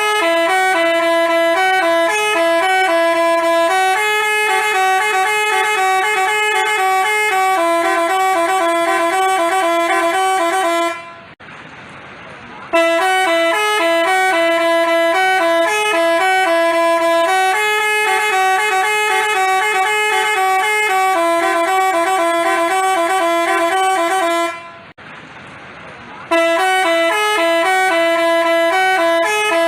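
Telolet 'basuri' multi-tone bus horn playing a stepped melody of short held notes. The same tune plays three times, each run lasting about 11 seconds, with short breaks about 11 and 25 seconds in.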